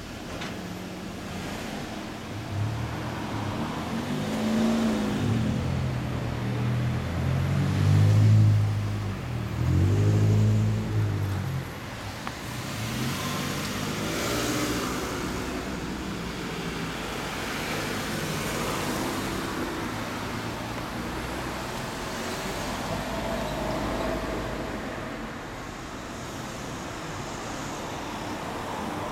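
Yamaha YZF-R125's single-cylinder four-stroke engine running through a Leo Vince L SBK slip-on silencer, revved up and down several times in the first twelve seconds or so, then idling more quietly.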